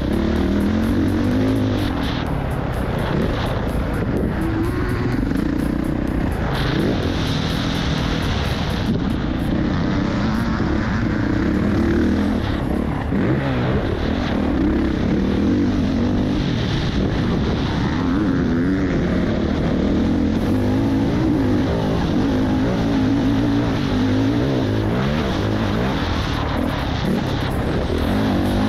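2022 Honda CRF450 motocross bike's single-cylinder four-stroke engine running hard on the track, its pitch climbing and dropping again and again as the throttle is opened and shut through corners and straights.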